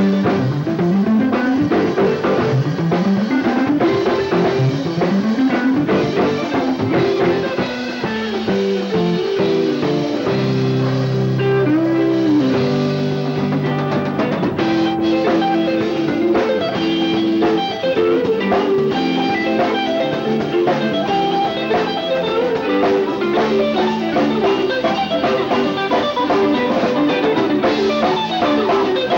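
Live rock band playing an instrumental passage with electric guitar and drum kit, with a string of rising runs in the first several seconds and a held low chord around the middle. The sound is a dull, lo-fi cassette recording.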